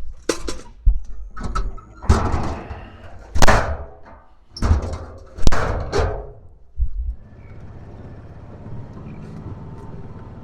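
A run of loud bangs and scraping clatters, like a door or metal gate being worked, then a vehicle engine running steadily from about seven seconds in.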